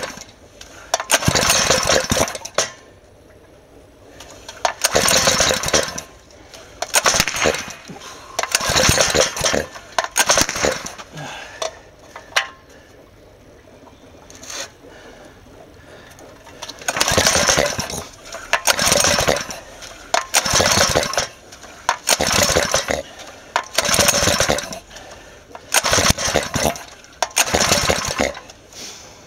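Small four-stroke engine fed with HHO (oxyhydrogen) gas coughing into life in short rattling bursts of about a second each and dying again, over and over, with a lull about halfway through. It will not keep running: the ignition timing is too far advanced for hydrogen, so the spark fires too early and stops the piston before top dead centre.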